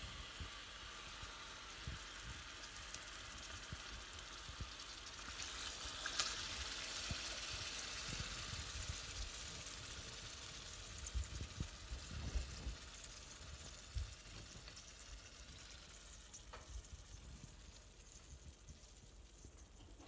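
Chicken breasts frying in olive and vegetable oil in a stainless steel pan: a soft, steady sizzle that swells about a quarter of the way in and fades toward the end. A few dull knocks come in the middle.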